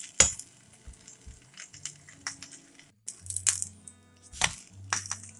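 Metal slotted turner scraping and knocking against a nonstick frying pan as a frying aloo paratha is pressed and flipped, in a few sharp clatters, the loudest near the start and twice in the second half.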